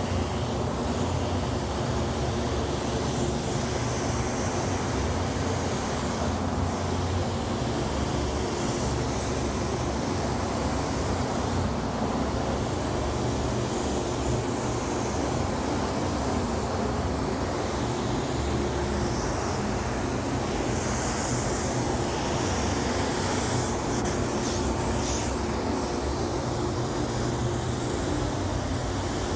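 Iwata LDX gravity-feed spray gun at about 20 PSI hissing as it sprays sealer, over the steady running of the spray booth's ventilation fans. The gun's high hiss comes and goes with each pass and trigger pull.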